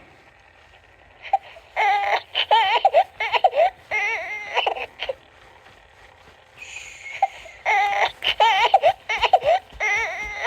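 Interactive baby doll's built-in crying sound: a high, wavering baby wail played twice, each run about three seconds long, with a pause between.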